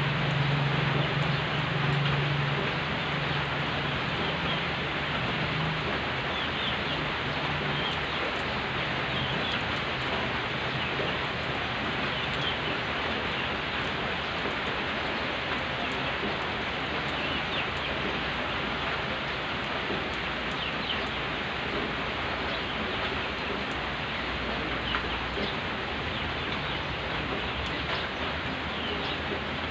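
Steady rain falling on a wet gravel road and on leaves, with a few short bird chirps here and there. A low hum fades away over the first several seconds.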